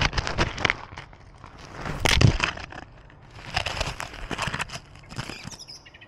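Loose gravel crunching and scraping right at a collar-mounted camera as a cat moves over stones, in irregular bursts every second or two.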